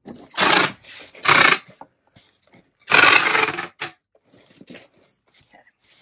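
Packing tape screeching off a handheld tape gun as a cardboard shipping box is sealed: three loud pulls, the last one the longest, with smaller rasps of tape being pressed down between them.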